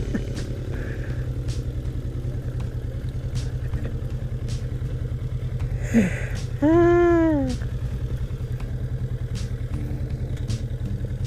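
Kawasaki Vulcan S parallel-twin engine running at low speed with a steady low pulse as the motorcycle rolls in slowly and stops. About two thirds of the way through, a loud drawn-out tone rises and then falls in pitch over most of a second.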